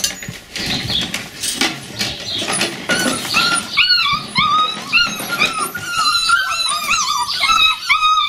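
Border collie puppies whining and yipping: many short, high cries that rise and fall, coming in quick succession from about four seconds in. Before that, a clatter of tin cans in a tub as a puppy climbs over them.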